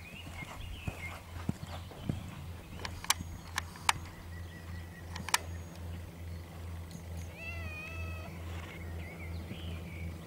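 A short wavering animal cry about three quarters of the way through, over a low hum, with a few sharp clicks a little before the middle.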